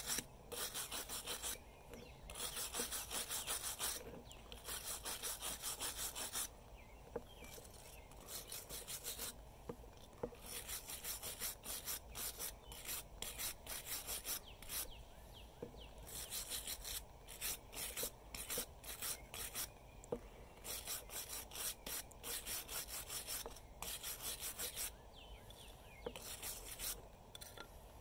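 Steel wire hand brush scrubbing a cast copper puck, in quick runs of back-and-forth scraping strokes with short pauses between runs. The bristles are working at a Teflon coating stuck to the copper, which does not come off with brushing.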